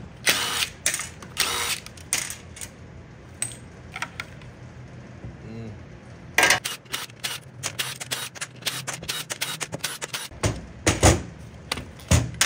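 Bench work on a TH350 automatic transmission's valve body: short bursts near the start, then a long run of sharp metal clicks and clinks as bolts are run out with a cordless driver and dropped on the steel bench, and the valve body is worked loose by hand.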